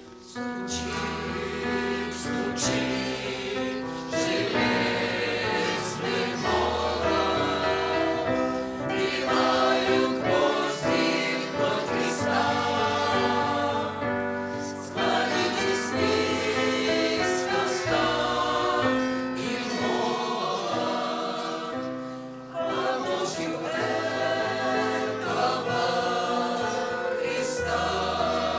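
Church choir singing a Russian hymn in parts over instrumental accompaniment, with sustained chords and steady bass notes.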